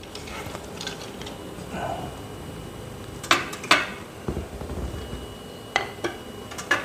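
Stainless-steel frame rails and teak slats of a folding camp table being handled and set down, with a few sharp metallic clacks: two about half a second apart midway, and a few more near the end.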